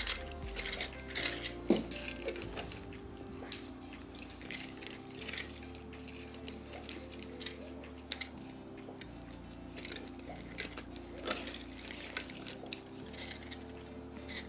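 Light clinks and clatter of ceramic crockery being handled, thickest in the first few seconds, with a few more later, over faint background music.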